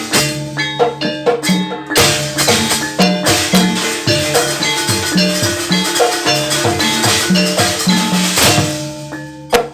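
A Javanese jaranan gamelan ensemble playing: drums and struck metal gongs and metallophones keep up a fast, steady rhythm. The music thins out near the end, with one sharp hit.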